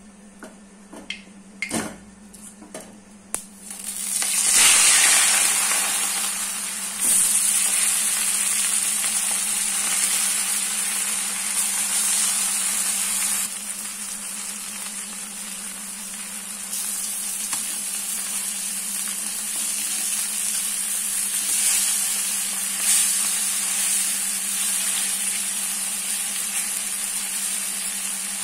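Fish pieces going into hot oil in a kadai: a sudden loud hiss about four seconds in, after a few light clicks. It settles into a steady sizzle as the fish fries.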